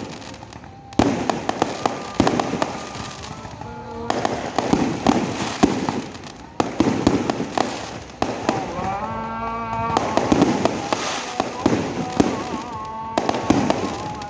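Fireworks going off in quick succession: many sharp pops and crackles, one after another.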